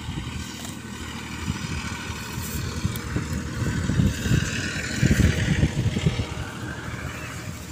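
Wind buffeting the microphone in uneven gusts, strongest about five seconds in, with faint wavering high tones in the background.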